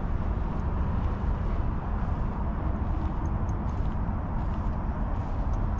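McLaren 620R's twin-turbo V8 idling steadily, a low, even rumble.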